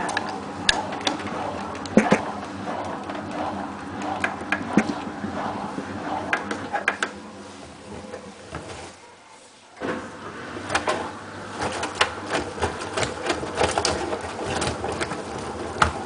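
Hotpoint Ultima WT960 washing machine's motor and drum running with the door open, turning a load of wet towels: a steady machine hum with frequent clicks and knocks from the tumbling load. About nine seconds in, the drum stops for about a second and then starts turning again.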